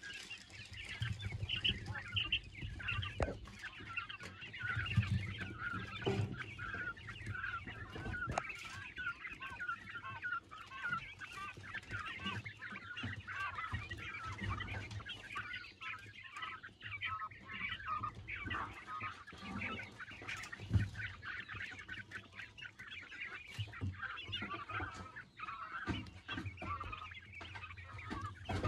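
A flock of juvenile Coturnix quail chirping and peeping continuously, many short calls overlapping. A few low thumps stand out along the way.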